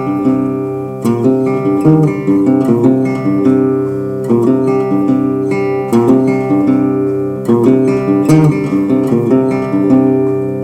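Background music: acoustic guitar playing a steady plucked and strummed pattern.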